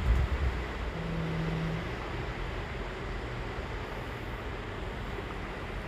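Steady outdoor noise of sea surf and wind buffeting the microphone, with a short low hum a second in.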